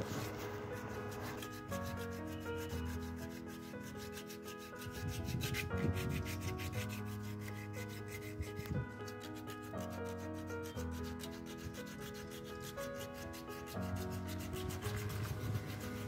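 Fine wet sandpaper being rubbed back and forth along a refrigerator's door handle, roughening its coating before it is painted. Soft background music of held notes runs under the rubbing.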